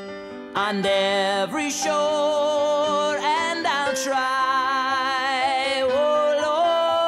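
Music: a sung melody with vibrato over sustained instrumental chords. It comes back in at full strength about half a second in, after a brief dip.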